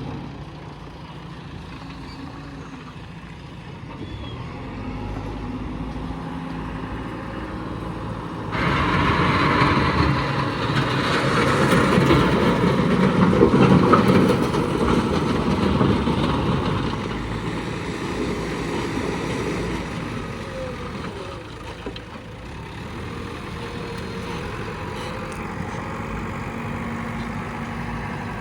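JCB backhoe loader's diesel engine running, with heavy trucks idling. About eight seconds in it turns abruptly louder and rougher, peaks a few seconds later, and eases back by about seventeen seconds.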